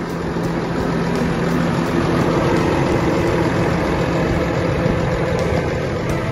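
New Holland T7 tractor's diesel engine idling steadily.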